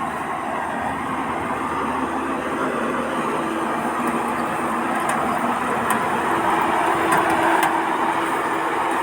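Combine harvester running as it harvests rice: a steady mechanical din, with a faint steady hum coming in partway through and a few light clicks.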